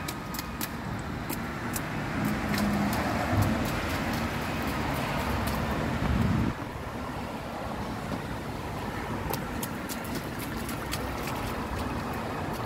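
Rubber rain boots splashing and stepping through a shallow rainwater puddle on pavement, over a steady low outdoor rumble. The splashing is loudest in the middle and stops suddenly about six and a half seconds in.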